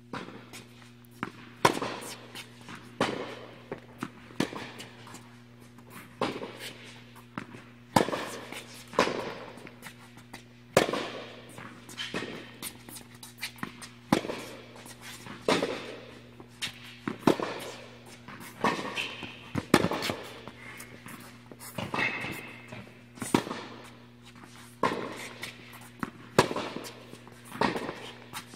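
Tennis balls struck by racquets and bouncing on an indoor hard court during a rally: sharp pops about once a second, each followed by a hall echo, over a steady low hum.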